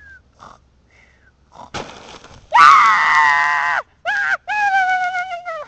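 A sharp crack like something breaking, followed by a loud, rough scream about a second long and then two long cries that fall slightly in pitch.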